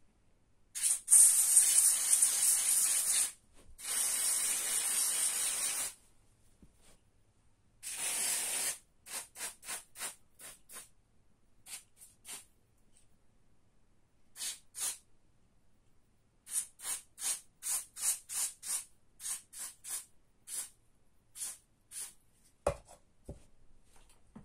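Aerosol can of silicone spray lubricant hissing into a bicycle's freewheel ratchet: three long sprays in the first nine seconds, then a long run of short squirts. Near the end there are two low knocks.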